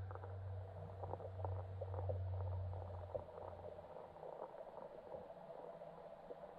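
Underwater sound in a lake: the low steady hum of a distant motorboat engine carried through the water fades away about four seconds in, over faint scattered clicks and crackles.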